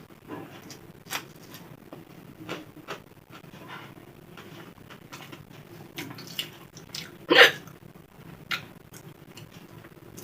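A woman hiccuping repeatedly, a series of short, sharp hiccups at irregular intervals, the loudest about seven and a half seconds in.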